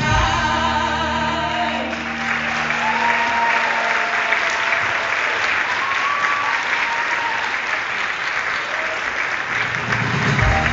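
Theatre audience applauding as the final held chord of a sung number dies away in the first few seconds; music starts up again near the end.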